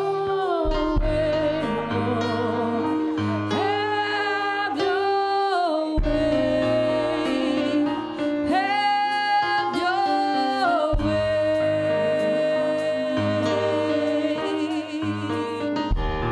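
Live gospel music: a voice singing long held notes that slide between pitches over sustained keyboard chords, with light drum and cymbal strikes.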